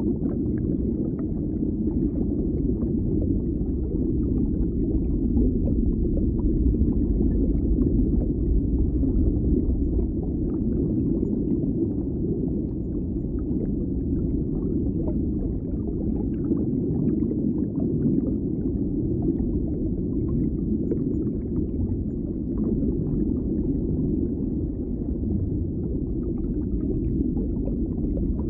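Steady, muffled low rumble of indoor shopping-mall ambience, with no distinct events.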